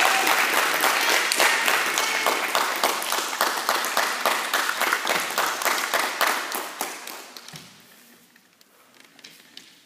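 Spectators clapping, the applause thinning and fading out about seven seconds in, with only a few faint taps after.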